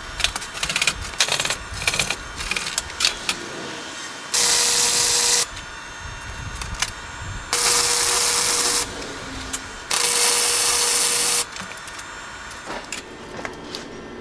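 Flux-core wire welder laying three short welds, each a loud, steady hiss lasting a second or so. Scattered clicks and knocks of steel parts being handled come between them.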